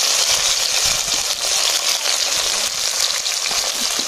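Chopped tomato and onion sizzling in hot oil in a black kadai (wok): a steady frying hiss.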